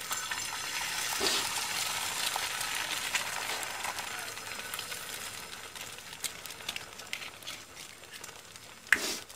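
Egg frying inside a slice of bread on a hot iron tawa, a steady sizzle that is strongest in the first few seconds and slowly dies down. A single sharp knock comes near the end.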